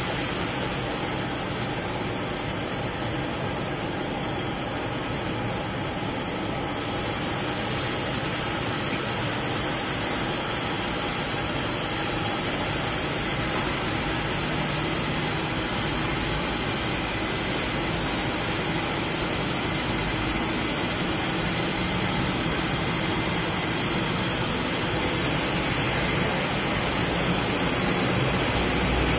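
A Hirung EL75LL CNC lathe running, its spindle turning a metal workpiece while the turret tool works against it. It makes a steady mechanical whirring noise that grows slightly louder near the end.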